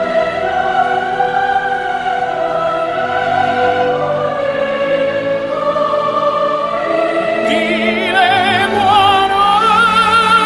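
Music: operatic singing over an orchestral accompaniment, long held notes throughout, with a voice singing with a wide, fast vibrato coming in strongly about seven and a half seconds in.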